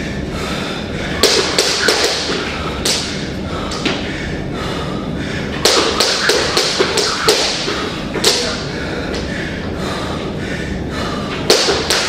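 Irregular knocks and taps coming in groups a few seconds apart, over a steady background noise.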